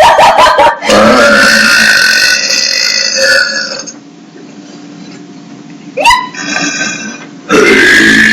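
Girls burping on purpose in a burp contest: a short crackly burp, then one long drawn-out burp of about three seconds. After a short pause comes a brief burp about six seconds in, and another long loud one starts near the end.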